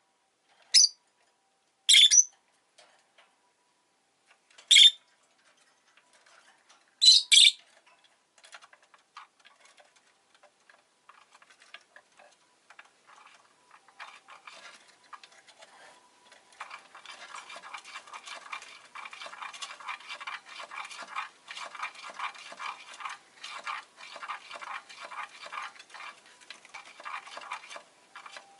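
Rosy-faced lovebird giving four short, sharp, high chirps spread over the first eight seconds. About halfway through, a fast, busy scratching and rustling takes over and grows denser.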